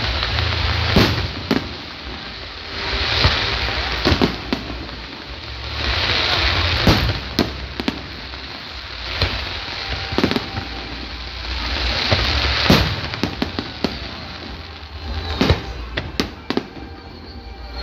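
A fireworks display bursting overhead: sharp bangs every second or few, with swells of crackling hiss a second or two long between them.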